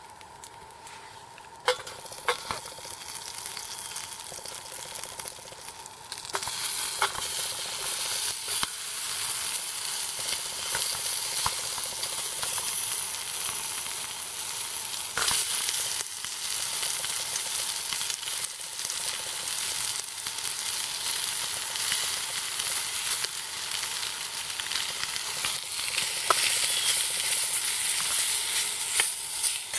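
Spam frying, a steady sizzle with scattered sharp pops. It starts after a click about two seconds in and grows louder around six seconds in.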